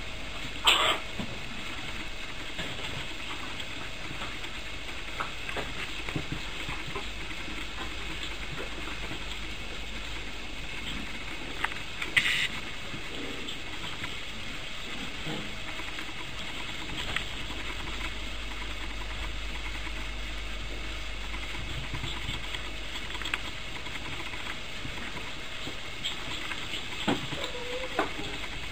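Steady hiss of recording noise, broken by a few short sharp sounds from puppies at play, one about a second in and one near the middle, and a short whine near the end.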